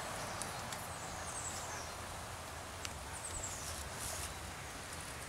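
A bird's high call sliding downward, heard about three times, over quiet woodland background with a few light clicks and rustles of gear being handled.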